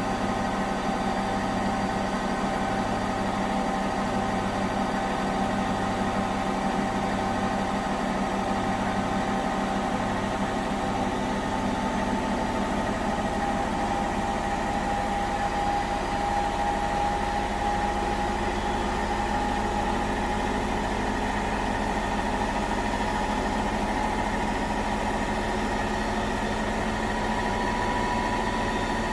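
Indesit washing machine drum spinning at high speed on its final spin, a steady motor whine and hum. A low throb pulses about once a second in the first half, then settles into a steady hum.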